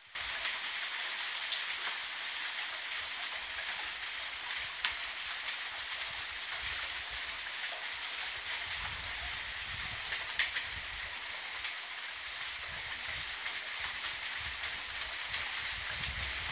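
Steady light rain falling, an even hiss with many separate drops ticking.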